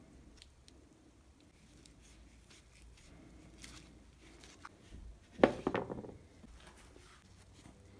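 Faint handling as a steel F-clamp is fitted and screwed tight on glued wooden pieces, then a sharp clunk about five and a half seconds in as the clamp is set down on the wooden table, with a short rattle and ring after.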